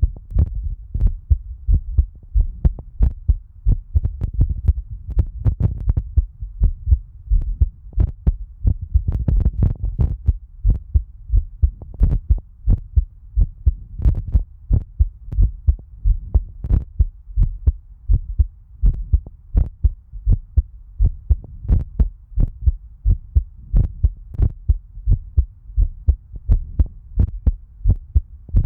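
A person's heartbeat recorded close up: steady, regular low thumps.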